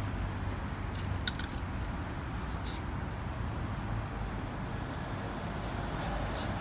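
Aerosol spray paint can giving short hissing bursts: one about a second in, one near three seconds, and three quick ones near the end. A low steady rumble runs underneath.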